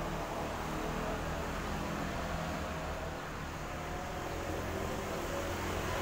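Steady background noise with a low hum and hiss, with no distinct event.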